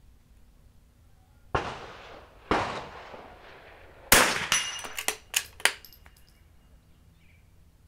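.22LR bolt-action rifle firing: two shots about a second apart, then a louder third shot about a second and a half later. A quick string of sharp clicks and a faint metallic ringing follow.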